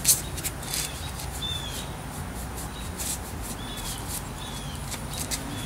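A small animal chirping: short, slightly falling high chirps, about one a second, over soft scratchy paintbrush strokes on a wooden chair.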